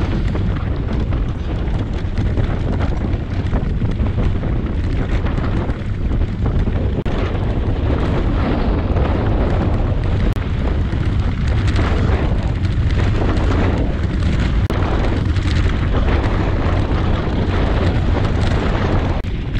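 Steady, loud wind rumble on the camera microphone during a fast mountain-bike descent. Under it, the tyres crunch over loose gravel and the bike rattles on the rough road.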